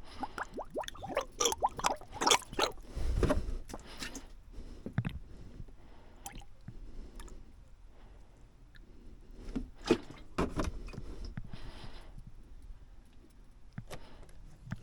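Coolant hose being squeezed by hand to push trapped air out of the freshly refilled cooling system. The liquid squishes and gurgles among scattered clicks and a few dull knocks from handling.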